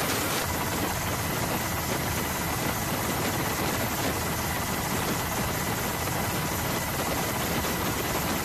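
Steady drone of a helicopter's engine and rotors, heard from aboard the aircraft, with a faint high whine held over an even rushing noise.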